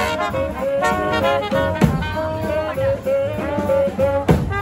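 A New Orleans-style street brass band with trombone, saxophone, sousaphone and trumpets plays a riff of short repeated notes. Bass drum hits come about two seconds in and again near the end.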